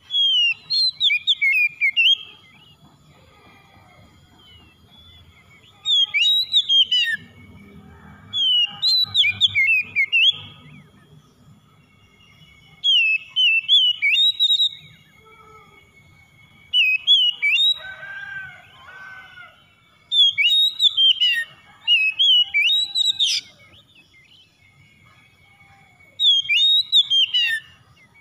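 Oriental magpie-robin (kacer) in full song: about eight phrases of rapid whistled notes that rise and fall, each a second or two long, with short pauses between them.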